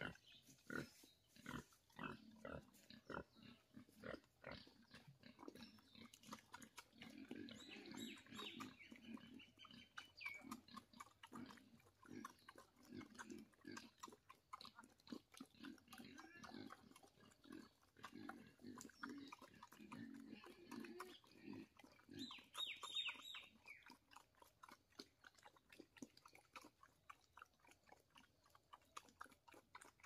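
A pig eating from a feed bowl: repeated short chewing and slurping clicks, with low grunts that are strongest in the middle stretch. A couple of brief higher-pitched calls come about 8 and 23 seconds in.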